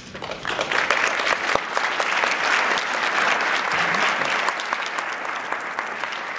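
A crowd applauding, the clapping swelling up about half a second in and easing slightly near the end.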